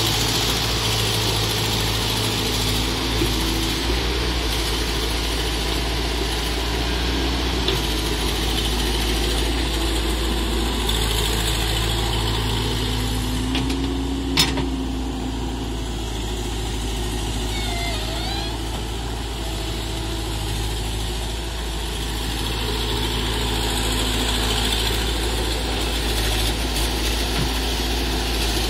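Diesel engine of a CAT tracked excavator running steadily as it works, with a single sharp clank about halfway through.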